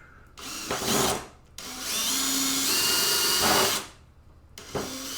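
Power drill running in reverse to back out a screw. It runs in three goes: a short burst, a longer run of about two seconds with a steady motor whine, and another short burst near the end.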